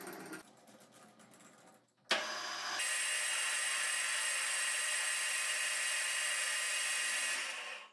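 Metal lathe running with its chuck spinning a threaded steel workpiece: a steady motor and gear whine that comes in suddenly about two seconds in and fades out near the end.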